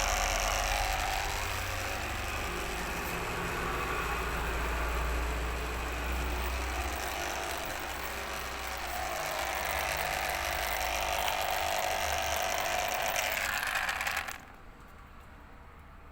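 Washing machine's DC drain pump running with an extreme, rapid rattling mechanical noise while draining toward spin, the abnormal noise that marks a faulty pump. It stops abruptly about fourteen seconds in.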